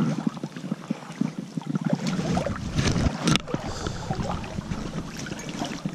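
River water splashing and sloshing close to the microphone as an angler wades, in irregular bursts, with a louder splash about three seconds in.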